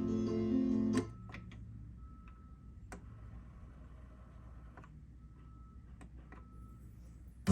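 Guitar music played from a record on a Sony PS-FL7 II turntable stops abruptly about a second in. A few faint clicks and a faint, intermittent high whine from the turntable's mechanism follow before the music starts again abruptly at the very end.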